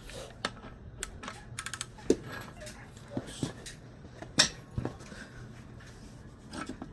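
Scattered clicks and knocks of hand tools being worked on a supercharger pulley hub. There is a quick run of clicks about a second and a half in and sharper knocks about two and four and a half seconds in.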